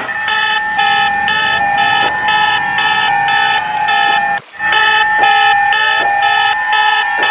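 Electronic emergency alert system (EAS) alarm, loud: a steady high tone and a lower tone held under beeping pulses about twice a second, with faint rising glides. The whole pattern cuts out briefly a little over four seconds in, then starts again.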